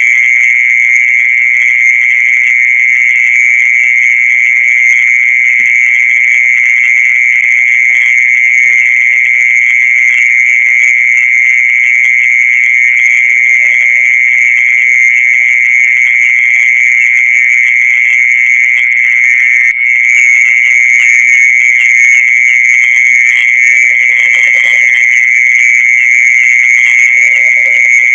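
Mole cricket's continuous high-pitched trill, a steady buzzing note held without pause apart from one momentary break about two-thirds of the way through; this is the sound popularly called the earthworm's song.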